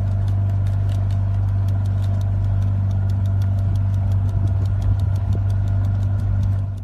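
Motorboat engine running with a steady low hum, with a fast, regular ticking over it.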